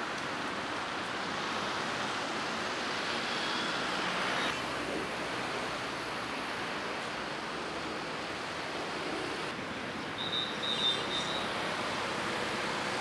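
Steady street traffic noise, with a brief high tone twice.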